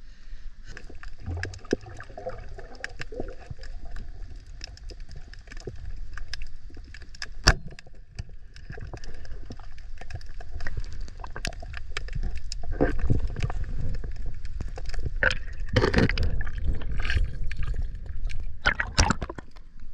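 Water sloshing and gurgling around an action camera at the surface and then submerged, with a muffled low rumble. Many short sharp clicks and crackles run through it, with one loud knock about seven and a half seconds in and louder splashy bursts near the end.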